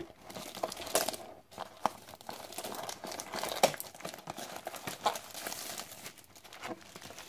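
Clear plastic shrink wrap crinkling and crackling as it is pulled off a cardboard booster box by hand, with a few sharper snaps of the plastic.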